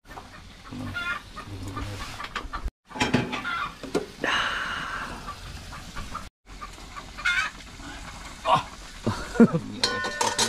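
Chickens clucking in short, scattered calls.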